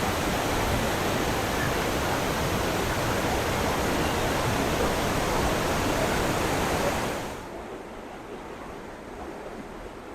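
Water rushing down a tiered waterfall, a loud steady hiss across all pitches. About seven seconds in it drops suddenly to a much fainter, duller rush.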